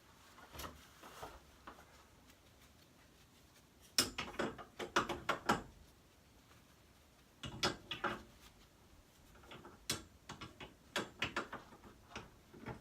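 Hand tools tightening the set screws on a garage door torsion spring's winding cone: several clusters of quick metallic clicks and clacks, the busiest about four seconds in.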